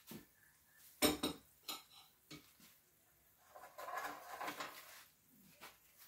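Cooking spoon knocking and scraping against a pot of spareribs in thick sauce as the finished dish is served up: a few sharp clanks about a second in, then a longer stretch of scraping and clinking in the middle.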